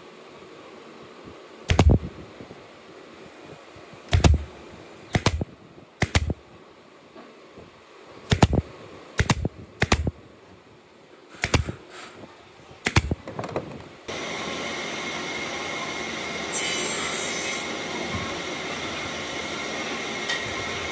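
Pneumatic nail gun firing about ten single sharp shots into pine boards, at uneven intervals of roughly half a second to two seconds. About two-thirds of the way in the shots stop and a steady hum with a thin high tone takes over.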